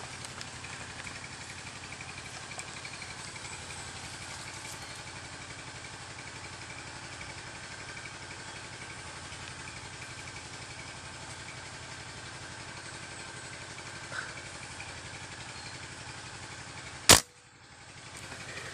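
A single sharp shot from a scoped hunting rifle near the end, much louder than anything else, over a steady drone of insects.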